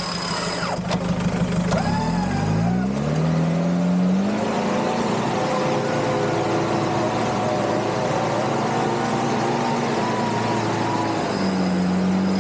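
Off-road vehicle engine revving up about two seconds in, held at high revs under load for several seconds, then dropping back near the end, during an off-road recovery.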